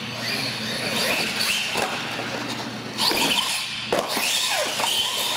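Radio-controlled solid-axle monster truck's electric motors whining, rising and falling in pitch with the throttle. Two sharp knocks about three and four seconds in as the truck hits a ramp and tumbles.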